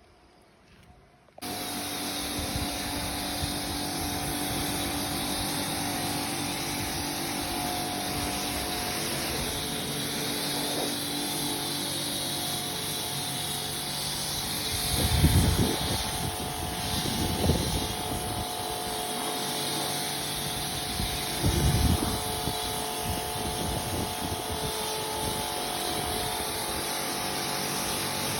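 Pressure washer running steadily, a motor-and-pump hum under the hiss of the water spray, starting suddenly about a second and a half in. A few brief louder low rumbles come through near the middle.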